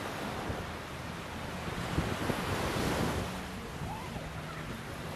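Surf breaking on a beach, one wave swelling to a peak about three seconds in, with wind rumbling on the microphone.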